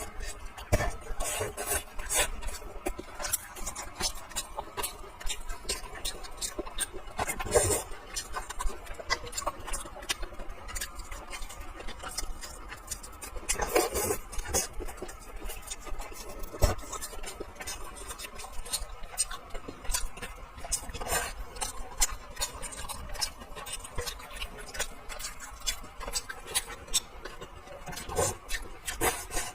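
Eating sounds from a meal of braised fish: irregular small clicks and taps of utensils on dishes, with a few louder smacks every several seconds.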